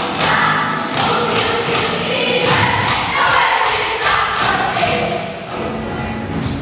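A children's choir singing an English song over music with a steady beat, about two strikes a second.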